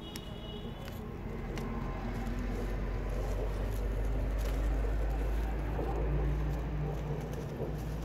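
Low rumble of wind buffeting the microphone, building toward the middle and easing near the end, with a short high bird chirp in the first second.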